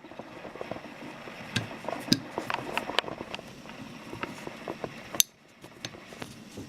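Light, irregular metallic clicks and taps of small steel revolver parts being handled as the hammer is fitted into the frame of an 1879 Reichsrevolver. A faint steady hiss underneath stops about five seconds in.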